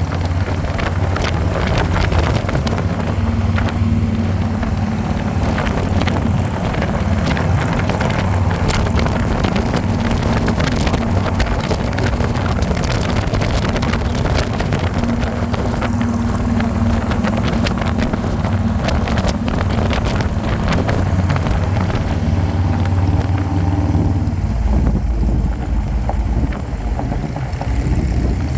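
Harley-Davidson V-twin motorcycle engine running steadily at riding speed, with wind buffeting the microphone. The engine note drops lower for a few seconds near the end.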